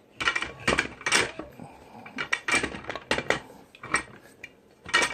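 Irregular metal clinks and knocks of a crankshaft and its connecting rods being tilted and guided into an engine case, with a rod being worked into the left cylinder opening.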